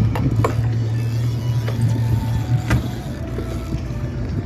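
Boat's outboard motor running with a steady low hum that eases off about three seconds in, with a few sharp knocks on top.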